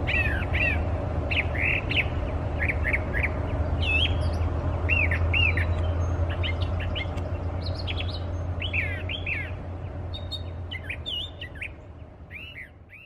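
Brown thrasher singing: a run of short, quick phrases of sweeping, chirping notes, one after another with brief pauses, over a steady low hum, the whole fading out near the end.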